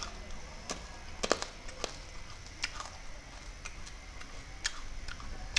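Wet mouth clicks and lip smacks while tasting candy, coming as scattered sharp ticks about every half-second to second.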